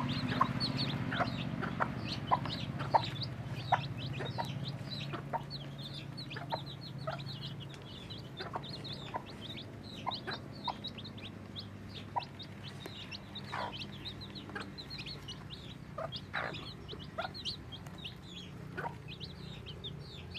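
Newly hatched chicks peeping in a steady stream of short high cheeps while the brooding mother hen clucks in short, sharp notes.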